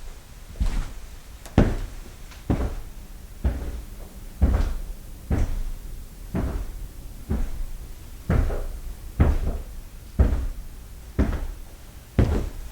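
Foley footsteps walking at a steady pace, about one step a second, each a short thud with a low thump.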